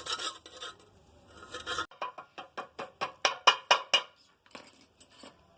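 Iron tawa and tools being handled: a quick run of sharp metallic knocks and clicks, about five or six a second, starting about two seconds in and thinning out near the end.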